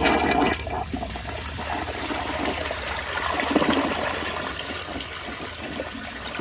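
2006 Kohler Wellworth toilet with the Ingenium flush system flushing: a rush of water into the bowl that is loudest at the start, swells again about three and a half seconds in, then eases off.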